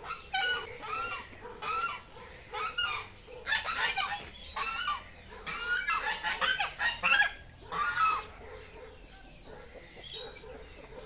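Domestic goose honking again and again in short runs of calls, densest in the first eight seconds and thinning out near the end.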